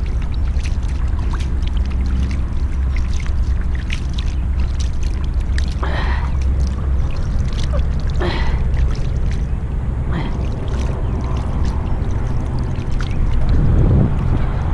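Pond water splashing as a freshly caught largemouth bass is dipped and rinsed in it, with several short splashes a couple of seconds apart. A steady low rumble of wind on the microphone runs underneath.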